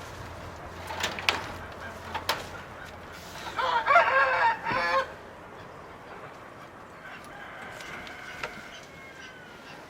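A rooster crowing once, a loud call of about a second and a half near the middle, with a few sharp clicks or knocks before it and faint calls of other birds after.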